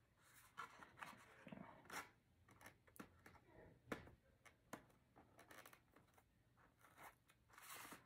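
Faint handling sounds of a small cardboard box being turned over in the hands: light rustles with scattered small taps and clicks.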